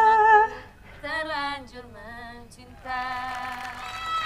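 A female voice singing a slow melody with drawn-out notes; a short loud note at the start, and the last note, about three seconds in, is held steady to the end.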